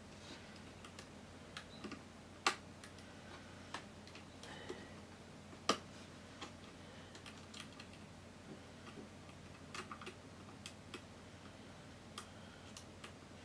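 Scattered faint clicks and light taps of plastic parts as a laptop's keyboard deck is handled and its ribbon-cable connector fitted, with a couple of sharper clicks in the first half.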